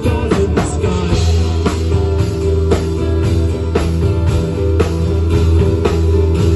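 Live rock band playing on electric guitars, bass guitar, drum kit and keyboard, with held low bass notes under regular drum hits.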